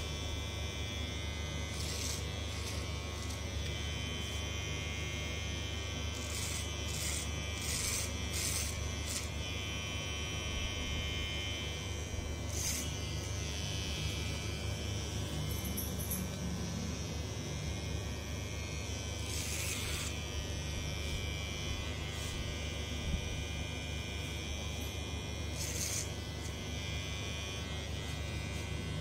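Cordless electric hair clipper running with a steady buzz, cutting short hair at the nape over a comb, with short crisp bursts now and then.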